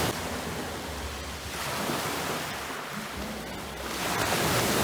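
Wind buffeting the microphone outdoors: a rushing noise with low rumble, swelling and easing over a few seconds.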